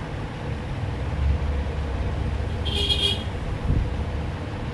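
Steady low rumble of road traffic, with a short high-pitched vehicle horn toot about three seconds in.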